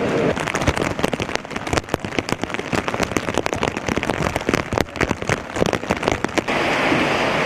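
Heavy rain pouring down, with many sharp, irregular taps of drops striking a hard surface. About six and a half seconds in, it gives way to a steady rushing hiss.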